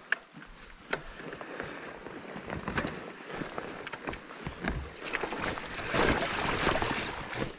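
Mountain bike riding over rough trail: a steady rush of tyre and trail noise broken by sharp knocks and rattles, louder for a stretch about five to seven seconds in.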